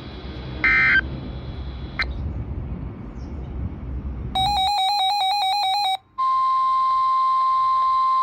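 NOAA Weather Radio receiver audio. Static with a short beep about half a second in. Then, past the middle, a brief burst of the warbling SAME digital header data tones. After a short gap comes the steady single-pitch 1050 Hz weather-radio warning alarm tone that opens a new severe thunderstorm warning.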